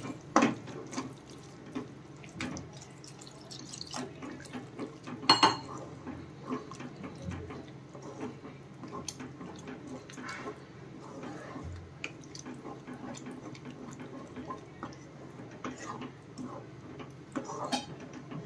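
Water being added to a cooking pan of methi gravy, running and splashing, with scattered metal clinks and knocks from the pan and utensils; the loudest knock comes about five seconds in.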